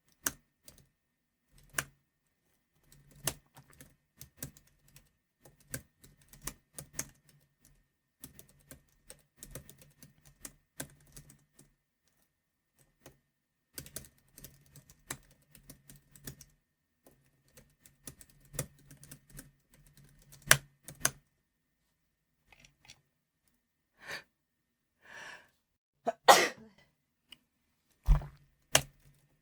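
Computer keyboard typed in bursts, with the occasional key, such as Enter, struck hard for a loud clack. Typing stops after about 21 seconds. Two breaths follow, then a loud sneeze, the loudest sound, and a single low thump near the end.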